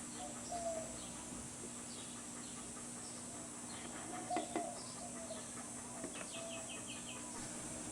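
Faint bird calls: short clucking calls and chirps, including a quick run of six chirps a little past six seconds in, over a steady low hum.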